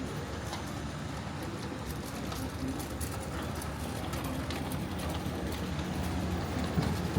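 Outdoor street ambience: a steady low rumble, like a vehicle engine running nearby, with scattered light clicks and knocks.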